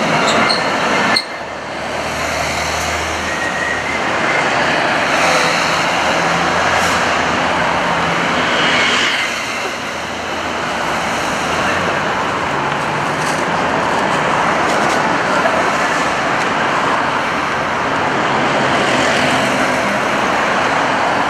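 Busy city-street traffic: cars and trucks running and passing, with a steady engine hum. The sound changes abruptly about a second in.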